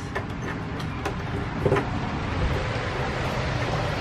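Low steady rumble of a motor vehicle running nearby, growing somewhat louder toward the end. A few light clicks and taps come from the LED light strip and its tape being handled against the scooter's plastic underside.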